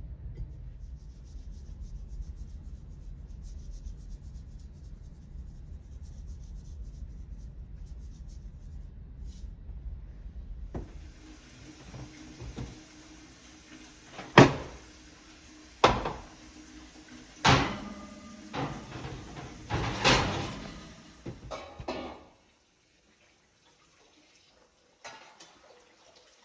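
A low steady rumble, then from about eleven seconds in a run of sharp knocks and clunks, the four loudest about a second and a half apart, as things are handled in a kitchen.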